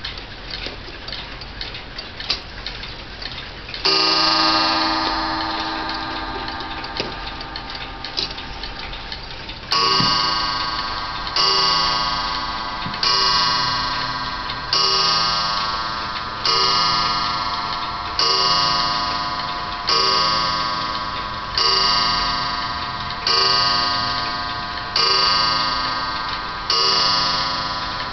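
Kassel 31-day pendulum mantel clock ticking, then striking the hour: one ringing strike about four seconds in, and after a pause eleven more strikes, evenly about 1.7 seconds apart, each ringing out and fading before the next.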